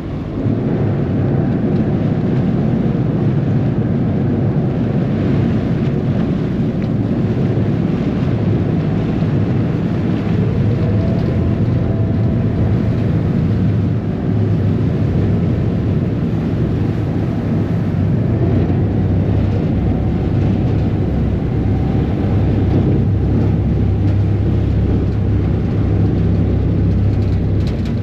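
A ferry's diesel engine running with a steady low rumble under way, under a hiss of water rushing past the hull and wind.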